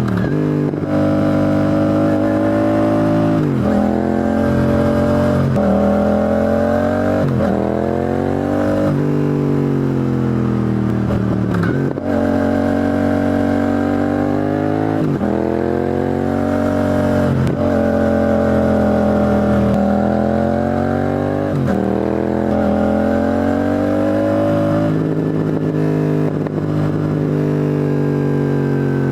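Yamaha YZF-R7's 689 cc CP2 parallel-twin engine heard through its exhaust, revving up in pitch and dropping back sharply, over and over.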